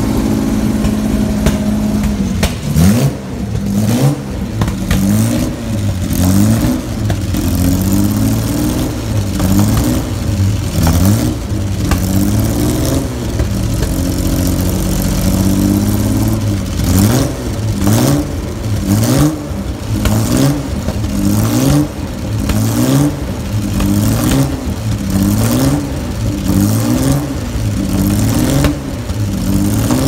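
Classic race car engine being warmed up: it idles steadily at first, then the throttle is blipped over and over, the revs rising and falling about once a second, with sharp crackles from the exhaust.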